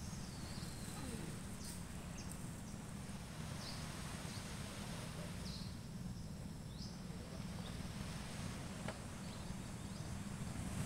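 Outdoor ambience: a steady low rumble with short, high bird chirps scattered through it about once a second.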